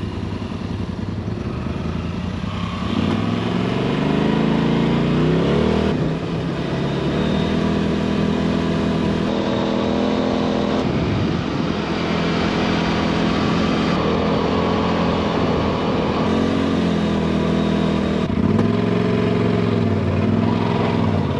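Polaris RZR side-by-side's engine running under way, revving up a few seconds in, then rising and falling with the throttle, with more changes in pitch near the end.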